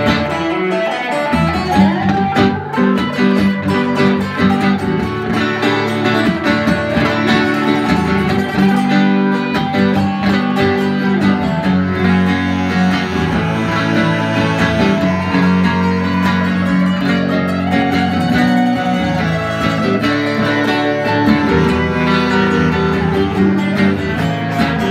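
A live band plays an instrumental break without vocals: a bass clarinet plays over electric guitar and a plucked bouzouki.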